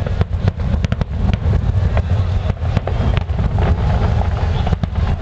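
Aerial fireworks bursting: a rapid string of sharp cracks and bangs over a continuous low rumble.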